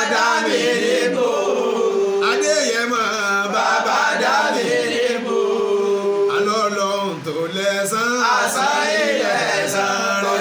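A man's voice chanting a song in Yoruba, with long held and gliding notes.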